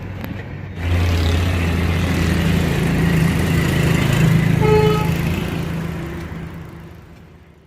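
Truck engine running steadily with a low, even hum, a short tone sounding once just before the five-second mark, then fading out near the end.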